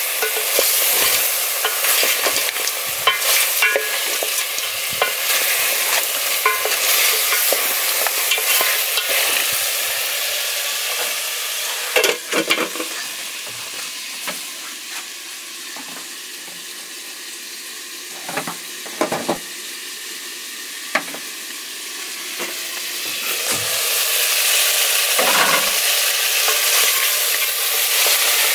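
Goat meat sizzling in cooking oil in a metal pot as the stewing water boils away, stirred with a wooden spoon that scrapes and clicks against the pot. About twelve seconds in, the sizzle drops and stays quieter for about ten seconds while the pot is covered, with a few knocks. It then grows loud again near the end as stirring resumes.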